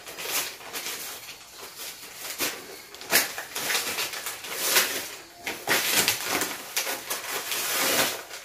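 Gift wrapping paper being torn open and crumpled by hand: irregular crinkling and rustling, with several louder rips.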